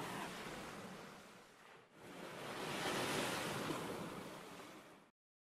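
Rushing water sound effect, an even hiss-like rush that fades away just before two seconds in, swells back up, then cuts off abruptly near the end.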